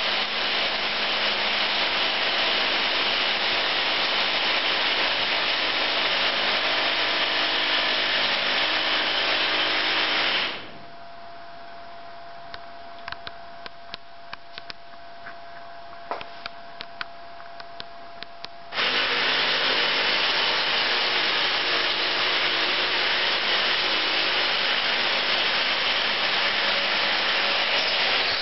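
Power drill boring holes into a rock wall for bolts, running steadily for about ten seconds. It stops for about eight seconds, leaving only faint clicks and a faint steady tone, then starts drilling again.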